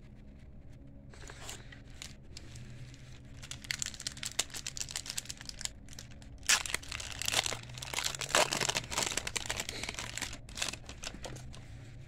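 Foil wrapper of a 1992-93 hockey card pack crinkling and tearing as it is ripped open by hand. The sharp crackles build from a few seconds in, are loudest in the second half, then fade near the end.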